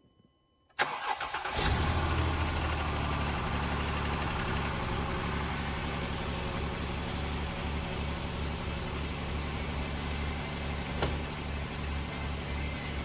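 Jeep Wrangler engine cranking and catching about a second in, then settling into a steady idle. It is the first start on a freshly fitted Mopar oil filter after an oil-pressure fault, and it runs smoothly without knocking.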